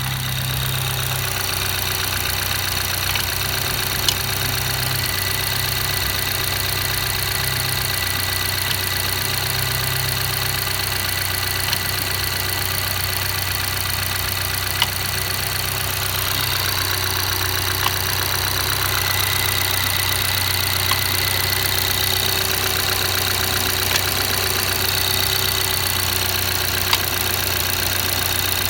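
BMW B48B20 2.0-litre turbocharged four-cylinder idling cold, with a sharp mechanical knock or click every few seconds at irregular intervals. The owner hears this foreign noise only when the engine is cold; it goes away once warm, and diagnostics show no fault codes.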